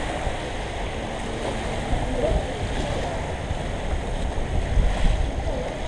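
Tropical-storm wind buffeting the microphone over the steady wash of surf and storm-surge water flooding across the shore.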